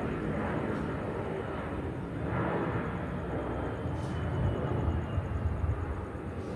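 Jet noise from an Airbus A320-232's IAE V2500 turbofan engines: a steady low rumble, with a faint whine that slowly falls in pitch from about halfway through as the aircraft passes.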